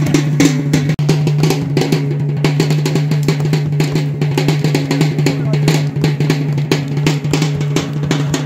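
Drumming for a masked spirit dance: fast, dense, irregular strikes over a steady low hum.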